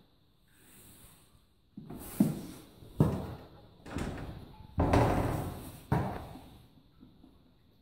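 A horse knocking against its wooden stall door: about six sharp knocks, irregularly spaced, each ringing out briefly in the stable.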